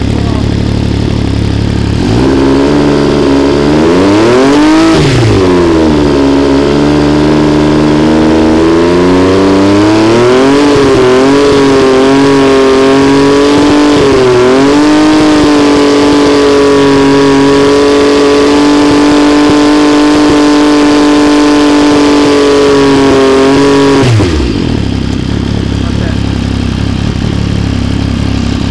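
MV Agusta Brutale 800's three-cylinder engine through a GPR Powercone aftermarket exhaust, idling, then revved up sharply and back down about two seconds in. It is brought up again and held at steady raised revs for about nine seconds, then drops quickly back to idle a few seconds before the end.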